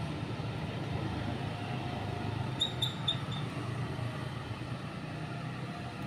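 Road traffic with scooters and cars running past, a steady low rumble. A little under three seconds in comes a quick run of four short high-pitched peeps.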